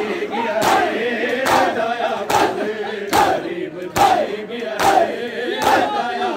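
Crowd of men doing matam, striking their bare chests with open hands in unison: a sharp slap about every 0.85 seconds, seven in all, over the men's continuous chanting voices.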